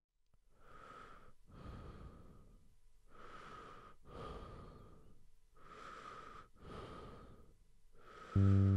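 A person breathing slowly and heavily, about three drawn-out in-and-out breaths of airy noise. Near the end a loud, low, sustained musical chord comes in and covers it.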